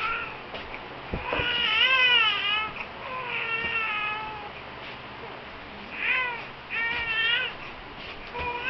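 Newborn baby crying: a series of wavering wails, each about a second long, with short breaths between them.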